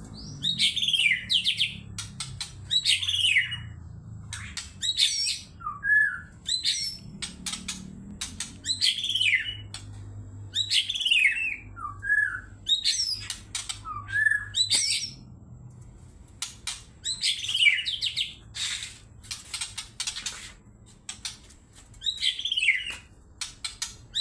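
White-rumped shama singing in a heated, 'emosi' state: loud phrases of falling whistled notes repeated every second or two, with a few short lower notes in between. It is the kind of agitated song used as a lure to provoke other shamas into singing.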